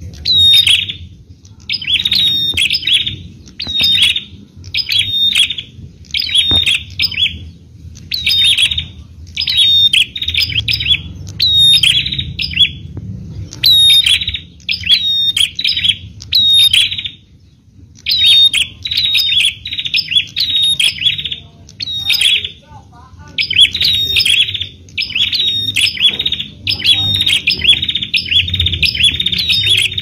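Bar-winged prinia (prenjak) calling over and over: loud, sharp high chirping phrases repeated about once a second, with a short pause a little past halfway. A faint low rumble runs underneath.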